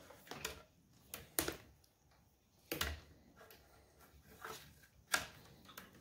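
Light irregular clicks and rustles of insulated wires and connectors being handled and pulled through a truck's factory wiring harness, with a few sharper clicks, the strongest nearly three seconds in.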